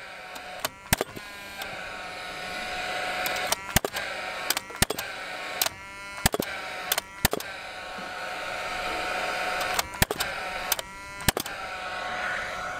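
Paslode cordless gas framing nailer driving nails into 2x4 double top plates: about a dozen sharp shots, some in quick pairs, with the tool's fan whirring between shots.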